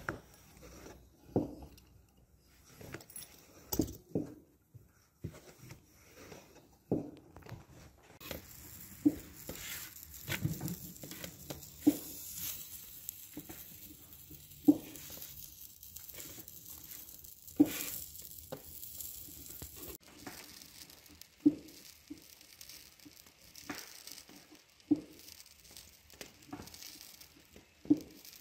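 Light knocks and scrapes as dough is cut with a metal pastry wheel, then, from about eight seconds in, kutabs sizzling on a hot iron saj, with a knife knocking against the iron every few seconds. The sizzle fades after about twenty seconds while the knocks go on.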